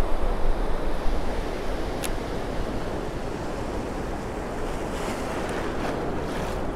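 Ocean surf breaking and washing around the angler's legs, with wind buffeting the microphone; a single sharp click sounds about two seconds in.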